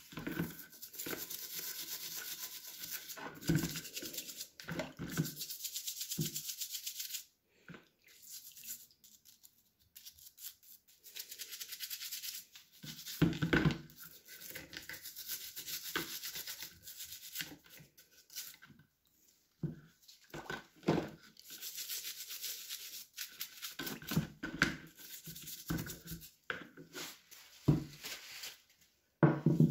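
Toothbrush scrubbing an old blowtorch's body in a bowl of liquid: rapid rasping strokes of the bristles with sloshes of water, stopping and starting a few times.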